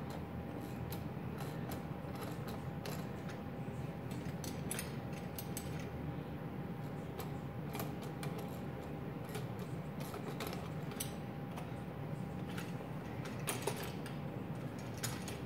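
Ratchet wrench clicking in short, irregular runs, with light metal clinks, as a nut is snugged down by hand.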